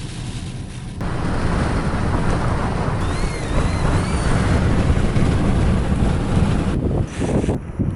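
Strong wind buffeting the microphone: a loud, steady rush of noise, heaviest in the low end, that jumps up about a second in. A few faint rising-and-falling whistles come through it around the middle.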